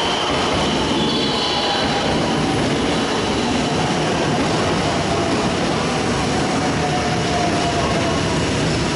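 Electric commuter train noise at a station platform: a steady, loud rumble and hum, with a faint tone gliding slowly downward in the second half. A short high two-tone electronic chime sounds about a second in.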